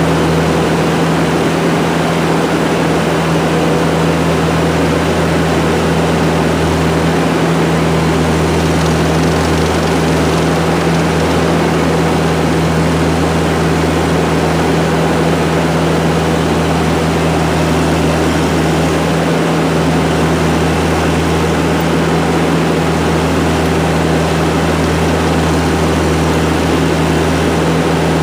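ASV tracked skid steer's diesel engine running steadily with a constant drone.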